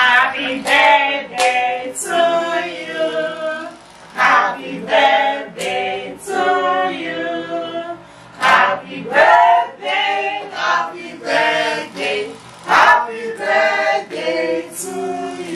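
A mixed group of men and women singing together with hand claps.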